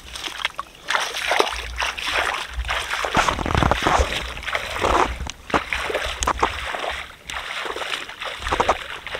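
Shallow water splashing and sloshing around a man's legs as he wades through knee-deep floodwater, in uneven surges with each stride.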